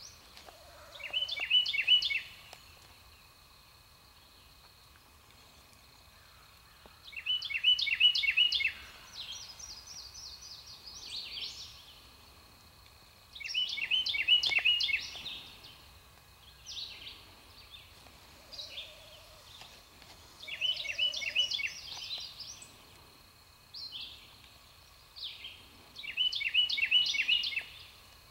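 Wild turkey gobbler gobbling five times, about every six seconds, each gobble a quick rattling run of notes lasting about a second. Fainter songbird calls come between the gobbles.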